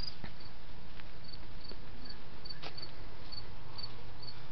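A cricket chirping in short high pulses about twice a second, over a steady hiss.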